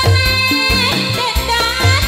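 A woman sings through a microphone and PA over a live band playing folk dance music, held notes over a steady drum beat and bass.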